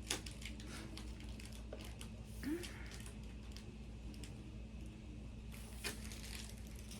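Faint rustling and scattered light clicks of product packaging being handled, over a low steady hum.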